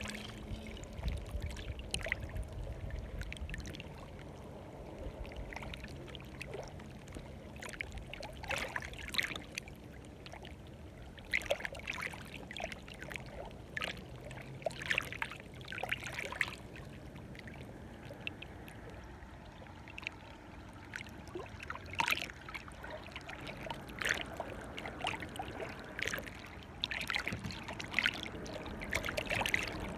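Water lapping and splashing at the shoreline: irregular small splashes over a low, steady wash.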